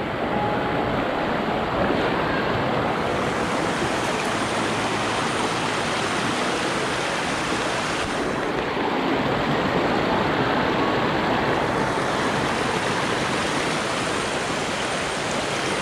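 Shallow rocky river running over stones and boulders: a steady rush of water.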